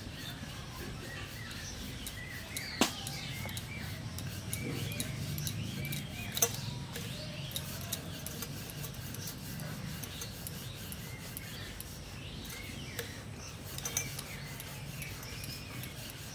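Wooden rolling pin rolling out dough on a floured board: a steady rubbing, with a few sharp knocks, the loudest about three seconds in.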